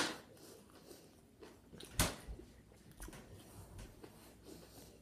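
A mostly quiet room with two sharp knocks, one at the very start and a louder one about two seconds in, and a few faint small noises between them.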